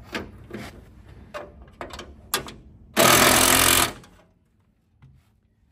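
Power drill run in one loud burst of about a second, tightening a bolt while the new radiator is fitted. Before it come a few light clicks and knocks of metal being handled.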